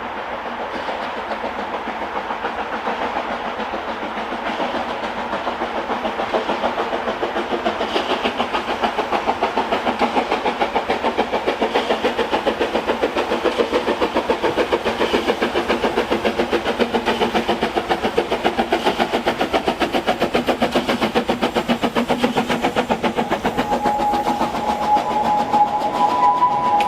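Henschel steam locomotive working a train, its exhaust chuffing in a fast, even rhythm that grows louder over the first ten seconds. A steady whistle tone comes in near the end.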